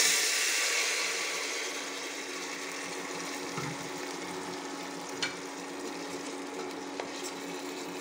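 Soaked rice sizzling as it lands in hot ghee with cumin and whole spices in a pressure cooker, loud at first and settling over the first couple of seconds into a steady, quieter sizzle. A few light clicks of the bowl and utensils, and a steady hum underneath.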